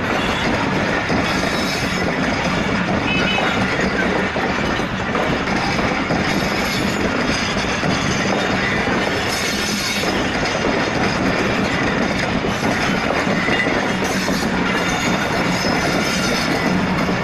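Pakistan Railways passenger coaches rolling past at close range: the steady wheel-on-rail noise of a long train going by.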